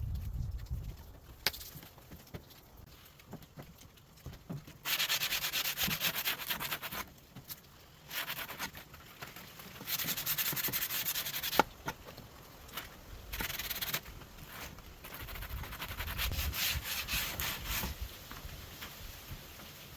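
Wood being sanded, in about five spells of one to three seconds each with short pauses between.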